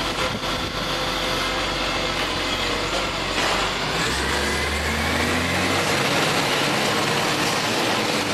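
Iveco Acco garbage truck's diesel engine running, with a rising whine from about halfway through.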